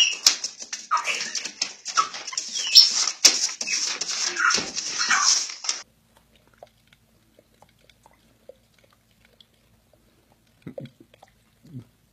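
Animal cries, whining and yelping with sliding pitch, for about six seconds, then cutting off abruptly to a few faint clicks and soft sounds.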